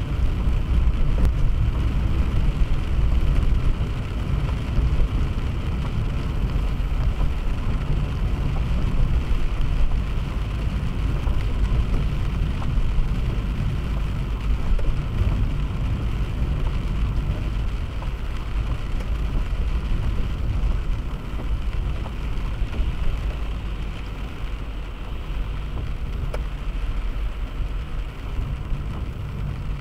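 Steady road noise of a car driving on a highway: a low rumble of engine and tyres with a hiss over it, easing slightly in the last third.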